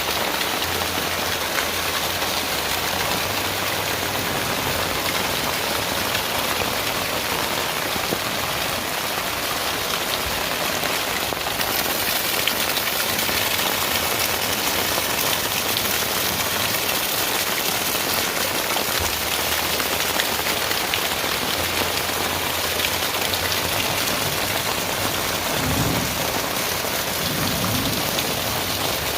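Heavy rain falling steadily and hard, pattering densely on surfaces. It gets a little harder about twelve seconds in, and two brief low thuds come near the end.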